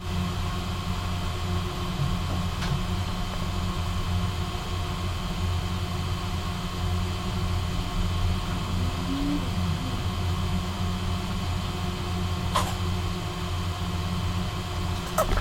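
Steady low mechanical hum with a faint whine, like a fan or motor running, with a few faint ticks.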